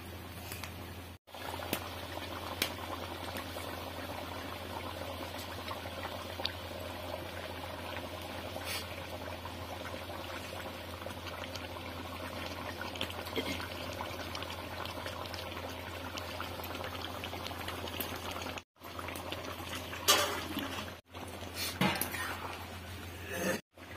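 Fish curry boiling in a kadai, a steady bubbling. Near the end a spatula is worked in the pan, with a few louder scrapes and splashes.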